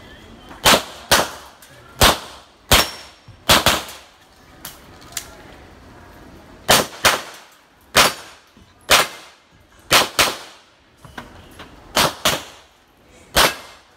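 Gunshots in a string of about fifteen sharp, loud reports, many fired as quick pairs, with a pause of about three seconds in the middle.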